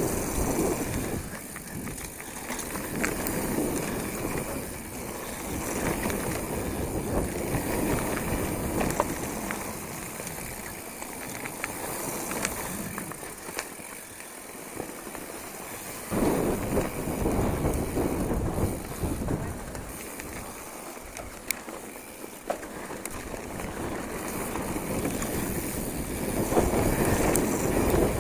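Hardtail mountain bike descending a dirt trail: tyres rumbling over loose dirt, small rattling clicks from the bike over bumps, and wind on the microphone. The noise eases off twice, about halfway and again about three quarters in, then builds up near the end.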